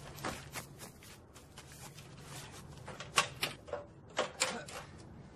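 A ladder knocking and clanking as it is set against a wall and climbed: a handful of sharp knocks in the second half, over a faint steady hum.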